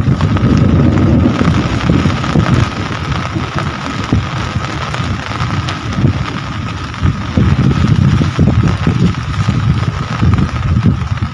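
Rain falling steadily, with a loud, uneven low rumble that swells and dips underneath.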